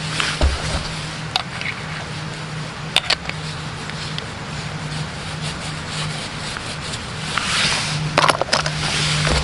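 Handling noise from a metal flashlight: a few sharp clicks and knocks, then a longer rubbing, scraping sound near the end, over a steady low hum.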